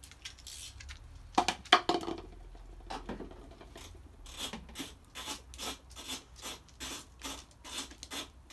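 Plastic scooter body panels being handled and lined up: a few sharp plastic clicks about a second and a half in, then regular rubbing, scraping strokes, about two to three a second, through the second half.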